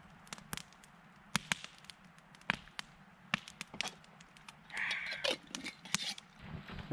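Campfire crackling, with irregular sharp pops of burning wood at uneven intervals and a short louder noise about five seconds in.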